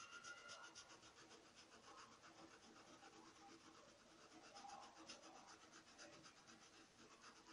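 Faint, quick, even scrubbing of a short-bristled stencil brush rubbing thinned fabric paint into a cotton towel.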